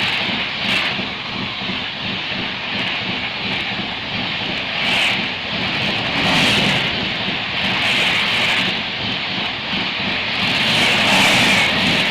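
Express passenger train passing at high speed: a steady rushing noise of wheels on rail and wind, swelling in regular surges about every second and a half as the coaches go by.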